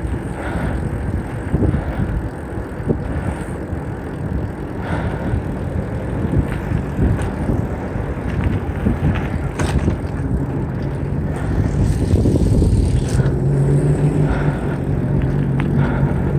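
Riding a bicycle along a road with car traffic: rumbling wind and road noise on the microphone. A steady low drone from a vehicle engine joins in during the last few seconds.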